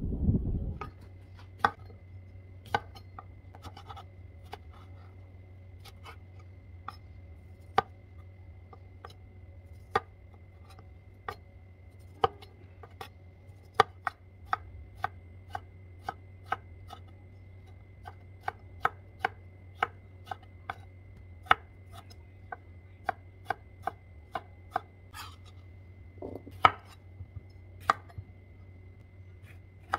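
Chef's knife cutting cucumber on a wooden cutting board: sharp, irregular knocks of the blade striking the board, sparse at first, then closer together, about two a second through the middle. A steady low hum and a faint high whine sit underneath.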